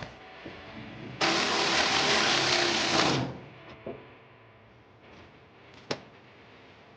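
A shop power tool runs in one steady burst of about two seconds, starting about a second in and stopping abruptly, followed by a few light clicks and knocks.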